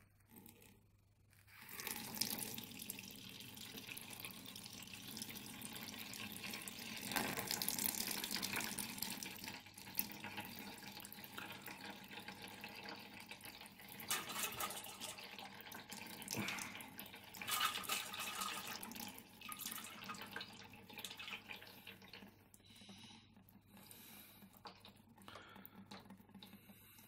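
Coolant draining out of a PC water-cooling loop and splashing into a container below, starting about a second and a half in, surging unevenly, and tapering off near the end.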